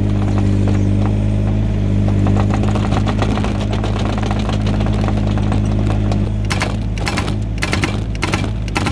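Yanmar ViO17 mini excavator's diesel engine running steadily. A run of sharp knocks comes in over the last couple of seconds.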